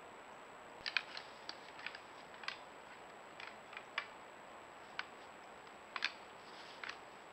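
Antlers of two young eight-point white-tailed bucks clicking and clacking together as they spar. About a dozen sharp, irregular clicks come over a steady hiss.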